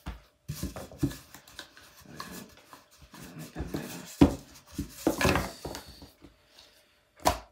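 Hands working a thin sheet of wrap dough on an oilcloth-covered table: irregular rubbing, patting and scraping, with a couple of sharp knocks as the rolling pin is picked up and set down. The loudest stretch is a longer rush of rubbing about five seconds in.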